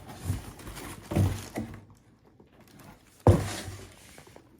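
Cardboard shoebox being opened and handled: a few short rustles and knocks, then one sharp thunk about three seconds in.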